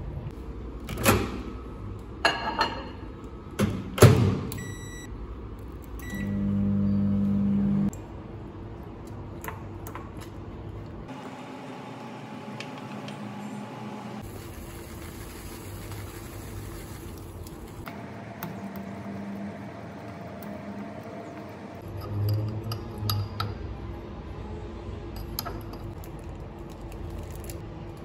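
Microwave oven: a few short keypad beeps, then the oven running with a steady hum for about two seconds. Around it come knocks and clinks of a ceramic bowl and a metal fork.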